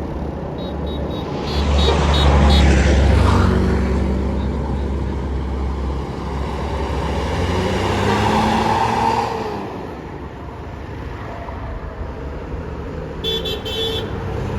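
A large bus goes by with its diesel engine rumbling, loudest about two seconds in, and then fades. Near the end a telolet bus horn gives a short burst of several tones at once.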